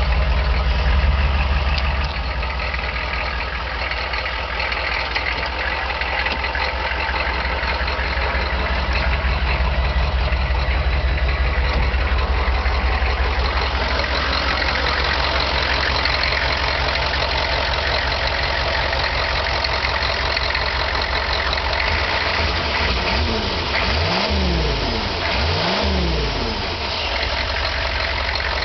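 A Corvette's turbo-diesel engine idling steadily, then revved up and back down twice in quick succession near the end.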